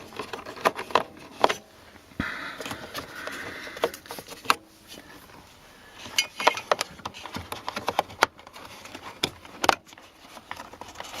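Irregular sharp clicks, knocks and scraping of parts being handled as a climate-control vacuum actuator pod is worked against its retainer to free it, the pod jammed in its mount.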